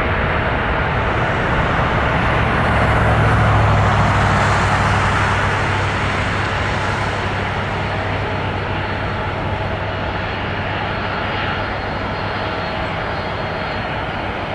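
Boeing 737 airliner's jet engines running loud on the landing rollout just after touchdown. The noise swells about three seconds in, then slowly fades as the jet slows down the runway.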